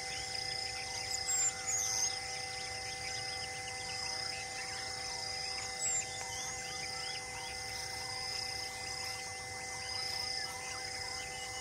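Forest ambience of a dense insect chorus, with a buzz that pulses about once a second and several steady droning tones, plus scattered high bird chirps. A few short, louder bird calls come between one and two seconds in and again about six seconds in.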